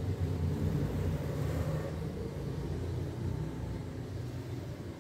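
Low steady rumble with a faint hum, easing off slightly toward the end.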